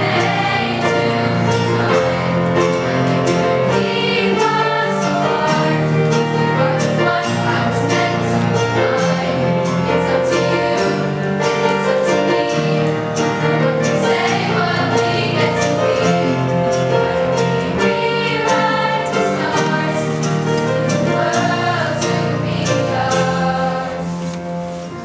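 Middle-school chorus of children's voices singing together, accompanied by a strummed acoustic guitar. It grows a little softer near the end.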